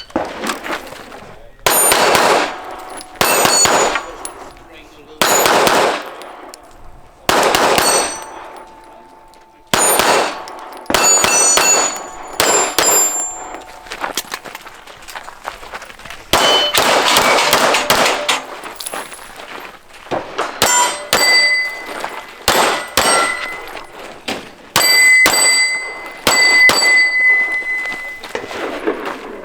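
Pistol shots fired in quick groups at steel targets during a timed match stage, the hit plates ringing and clanging after the shots. The strings of fire come closer together in the second half.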